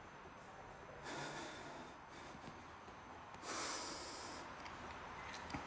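A man's breathing, faint: two breaths, one about a second in and a slightly longer one about three and a half seconds in.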